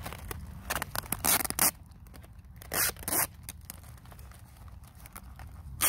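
Adhesive tape pulled off the roll in short rips: several in quick succession about a second in, then two more around three seconds.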